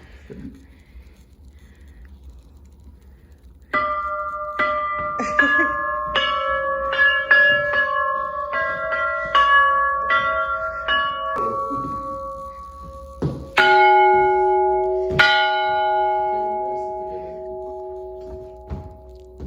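Vilnius Cathedral bell tower's bells ringing close by. After about four seconds of quiet, a run of quick strokes on bells of several pitches comes at about two a second. Then, near the fourteen- and fifteen-second marks, a larger, lower bell strikes twice and is left ringing as it slowly dies away.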